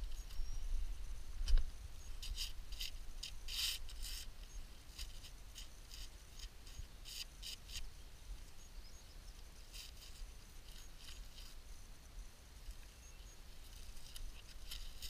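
Gloved hands handling and rubbing soil off a rusty, soil-caked dug-up object: irregular dry scratching and crackling. One thump about a second and a half in.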